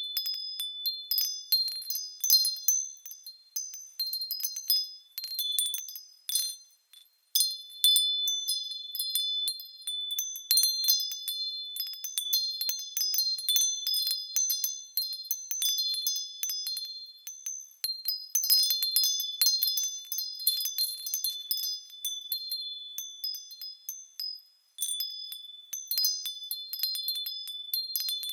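Wind chimes ringing, struck irregularly over and over, a few high notes that overlap and fade. The chiming almost dies away twice, about seven seconds in and again near the end of the middle stretch, before picking up again.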